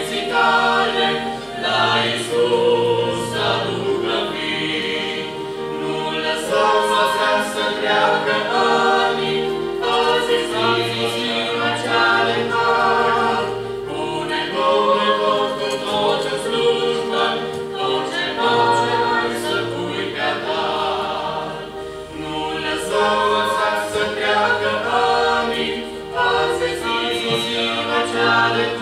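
Mixed vocal quartet of two men and two women singing a hymn in harmony from hymnbooks, the phrases sustained and continuous.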